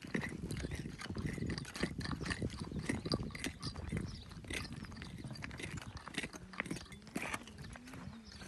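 Stones and gravel clicking and crunching irregularly over a low rumble.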